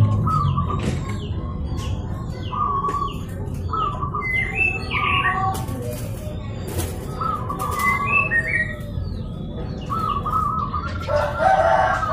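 Zebra doves (perkutut) cooing: short trilled coos repeating about once a second, with higher chirps from small birds among them and a louder burst of calling near the end.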